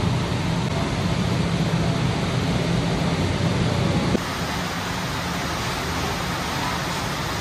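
Steady rushing noise with a low hum from commercial kitchen ventilation. It drops a little in level and changes in tone about four seconds in.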